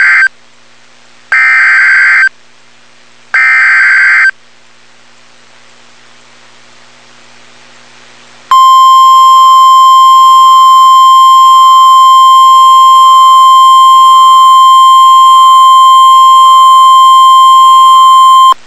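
Emergency Alert System SAME header: three one-second bursts of raspy digital data tones, a second apart. After a pause of about four seconds comes the NOAA Weather Radio 1050 Hz warning alarm, a single steady loud tone for about ten seconds that cuts off suddenly, announcing a severe thunderstorm warning.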